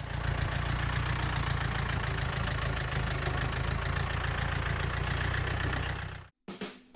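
John Deere 1070 compact tractor's diesel engine running steadily, cutting off suddenly about six seconds in.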